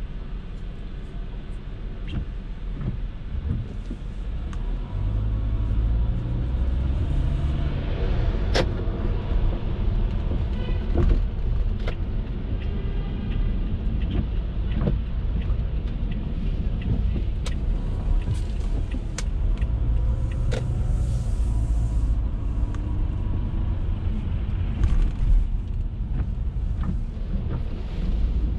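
Car driving on rain-wet city streets: a steady low road and engine rumble that swells about five seconds in, with scattered clicks and knocks over it.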